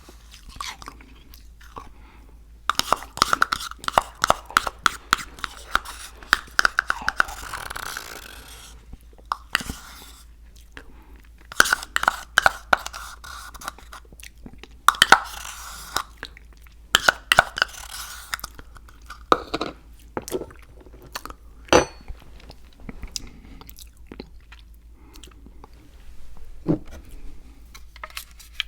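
Close-miked chewing of crunchy food, in bursts of rapid crunches lasting a few seconds with short pauses between. A few single sharp clicks follow near the end.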